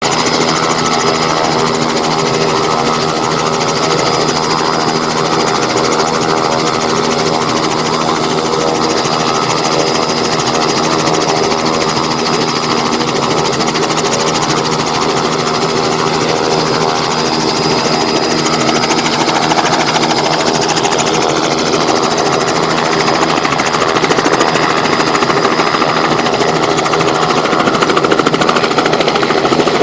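Helicopter running steadily, its engine and rotor giving a dense even drone with a thin high whine. It grows a little louder over the last several seconds.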